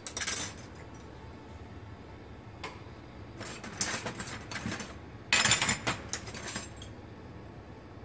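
Glass rods and stringers clinking and rattling against each other and the bench as they are handled: a short clatter at the start, then two longer runs of clinking around four and six seconds in. A steady low rumble runs underneath.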